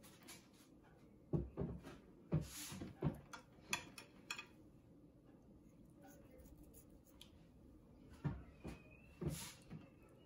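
Faint snipping and handling of kitchen scissors trimming fat from raw chicken breasts in a glass baking dish: two clusters of short clicks and knocks with a quiet stretch between.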